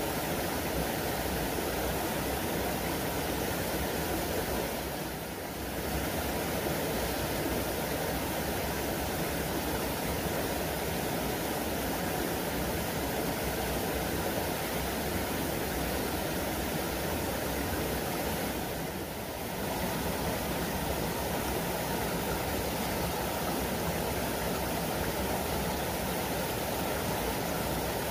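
A small waterfall pouring into a pool: a steady rush of water that dips briefly twice.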